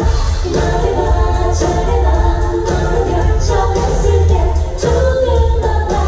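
Live pop music: a female vocalist sings into a microphone over a band with a strong, steady bass beat, heard through a phone held among the audience.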